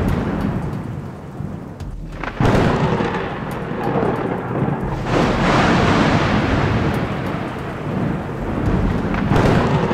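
Thunder rumbling through a night thunderstorm, with a sudden loud clap about two and a half seconds in and more rolling swells around five seconds and near the end.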